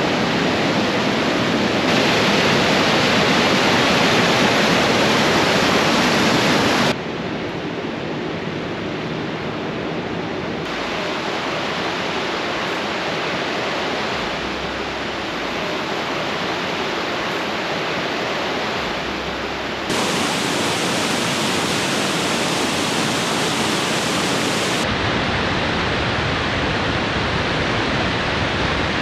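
White water of the Sauble River rushing over the rocky ledges of Sauble Falls: a loud, steady rush, with several sudden shifts in loudness and tone.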